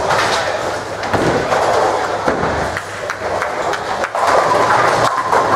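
Ten-pin bowling alley din: balls rolling down the lanes and pins clattering, with scattered knocks throughout, a little louder from about four seconds in.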